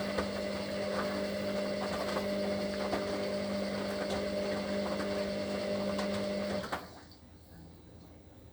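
Hoover HLW585DC washer dryer's motor running with a steady hum and a few faint knocks from the load, during the final rinse of a full load, then cutting off abruptly near the seven-second mark.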